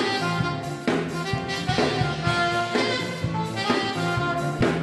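Upbeat jazzy band music with saxophone and brass over a drum kit, with strong accents about once a second.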